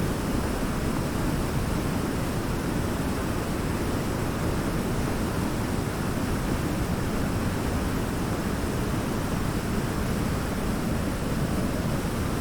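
Waterfall: falling water making a steady, even rush, deepest in the low range, with no change in level.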